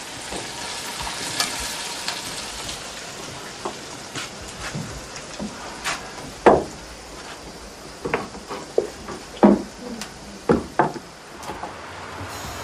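Food sizzling as it fries in a pan over a fire, a steady hiss. Sharp knocks and clinks of pots and utensils come scattered through it, the loudest about six and a half and nine and a half seconds in.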